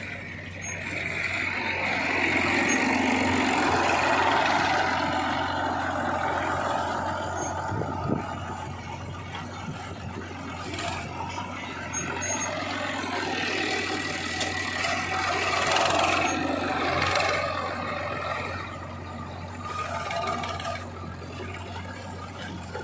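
Diesel engines of a JCB 3DX backhoe loader and a tractor running while the loader works. A steady engine hum runs underneath, and the machine noise swells twice: about two seconds in and again about fourteen seconds in, as the loader works harder.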